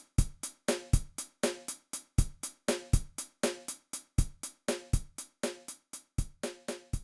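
A drum beat playing on its own: a steady kick-and-snare pattern of sharp hits, about four a second.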